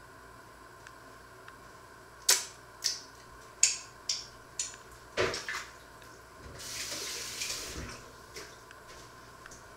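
A kitchen tap runs briefly, for about a second and a half, after a string of sharp clinks and knocks like dishes or utensils being handled at the sink.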